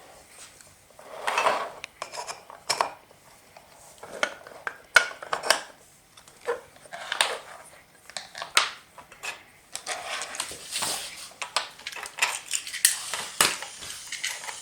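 Pieces of a BRIO wooden toy train set being handled, with irregular clicks, knocks and clattering, denser about two-thirds of the way through.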